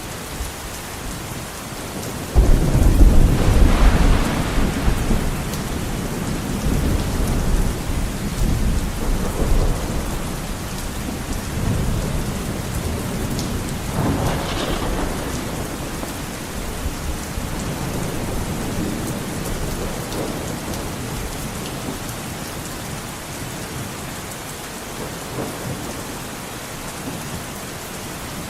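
Heavy rain on a window, a steady hiss. About two seconds in a loud clap of thunder breaks and rumbles on for several seconds, and a second, weaker roll of thunder comes around the middle.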